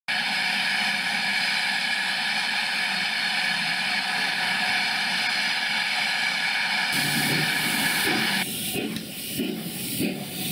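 Steam locomotive 7828 Odney Manor, a GWR Manor class 4-6-0, hissing steam loudly and steadily while standing at the platform. The hiss cuts off about eight and a half seconds in and gives way to an uneven low rumble.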